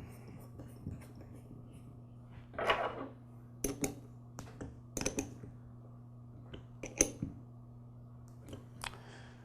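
Light metal clicks and clinks, with a short scrape about three seconds in, as the float bowl is fitted onto a small-engine carburetor and the bowl screw is put in. A steady low hum runs underneath.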